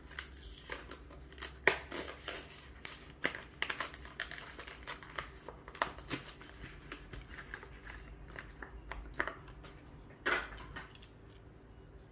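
Hot Wheels blister pack being opened: the stiff plastic bubble crinkling and the card backing tearing in irregular snaps and crackles, with a longer rip about ten seconds in.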